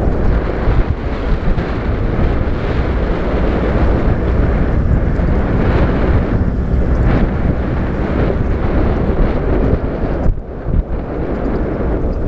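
Wind buffeting the microphone on an open game-drive vehicle as it drives along a dirt track, with the vehicle's engine and road noise underneath. The wind eases briefly about ten seconds in.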